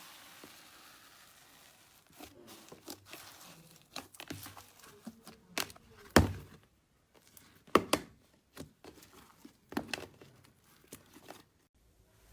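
Slime being pressed and stretched by hand, giving off irregular sticky crackles and pops, with a few louder snaps about halfway through.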